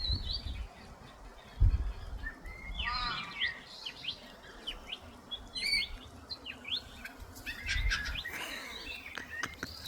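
Small birds chirping, many short high tweets that rise or fall quickly, scattered through the whole stretch, with a faint steady hiss underneath. A few dull low thumps stand out, the loudest about two seconds in.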